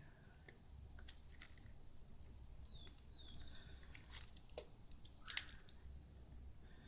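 Faint scattered clicks and light scrapes of a razor blade working at the glued screen edge of a small music player, with a brief high squeak about three seconds in.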